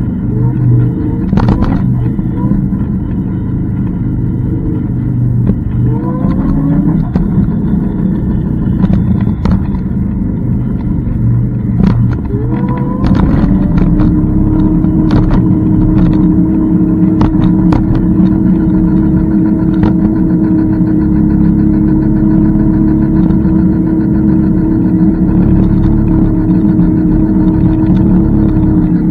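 Electric scooter riding along, with a loud rumble of wind and road on the microphone. The motor whine rises in pitch twice as the scooter speeds up, then holds at one steady pitch from about halfway through while it cruises. Scattered short clicks and knocks come from bumps.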